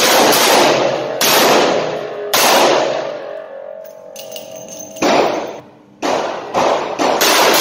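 Gunshots from a 2-inch snub-nosed .357 Magnum revolver, the Alfa Proj 3.1, each sharp bang followed by a long echo off the concrete walls of an indoor range. Three shots come about a second apart, and after a pause of a couple of seconds more shots follow, closer together near the end.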